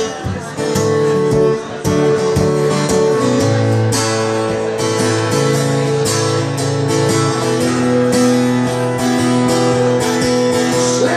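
Acoustic guitar strummed in a steady rhythm, its chords ringing with no singing.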